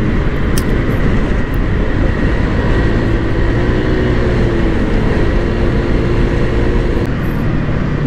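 Honda PCX 160 scooter running at highway speed, its single-cylinder engine and CVT (fitted with an aftermarket pulley set) droning steadily under heavy wind rush on the camera's microphone.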